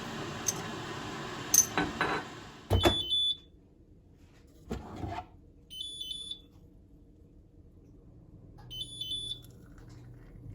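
A kitchen appliance's steady running noise, with a few clicks, stops about three seconds in and its electronic beeper sounds. Short high beeps repeat about every three seconds, three times, with a dull knock between the first two.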